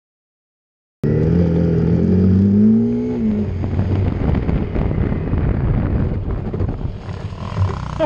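Silence for about a second, then a motorcycle engine cuts in suddenly, rising in pitch as the bike accelerates, and runs on with a rough, loud rumble as it rides over a rough dirt trail.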